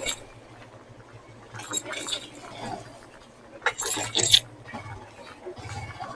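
Low steady hum of a vehicle engine with a series of sharp metallic clinks and rattles, the loudest cluster about four seconds in.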